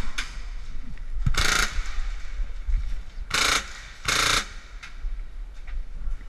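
Airsoft gun firing three short full-auto bursts, each a fast rattle lasting under half a second: one about a second and a half in, then two close together past the three-second mark.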